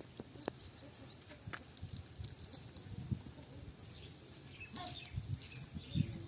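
Scattered soft clicks and rustles of a cast net being handled and picked through on grass, with a few low thumps.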